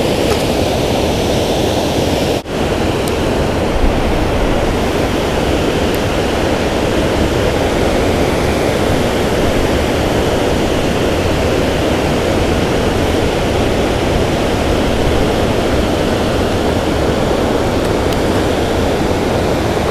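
Steady rushing of water pouring over a low river spillway dam, a loud even roar of falling water.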